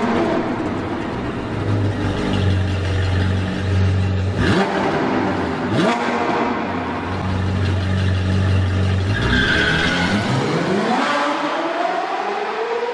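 Sports-car engine sound effect with several quick rising revs over a steady low rumble. About nine seconds in, the rumble stops and a long rev climbs steadily in pitch.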